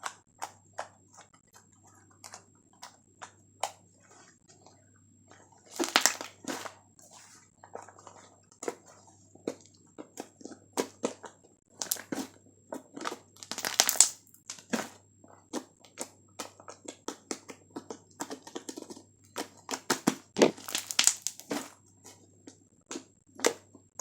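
Fluffy slime being squished and poked by hand: a steady run of short sticky clicks and crackles, with heavier bursts every few seconds.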